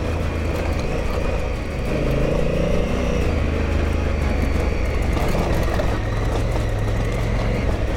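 Adventure motorcycle engine running steadily while riding along a gravel road, with tyre and wind noise; the loudness dips briefly about two seconds in.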